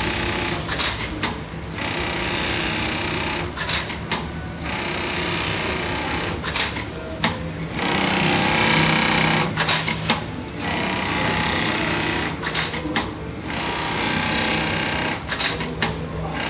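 Xingchi XC-6040R computer-controlled pattern sewing machine running at speed as it stitches along a template. The running noise drops out briefly about every three seconds.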